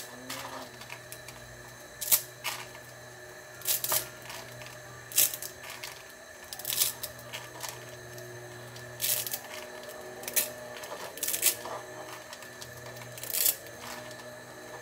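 Dry spaghetti snapped by hand into short pieces over a plastic tub: a sharp crack about every second, around a dozen in all, over a low steady hum.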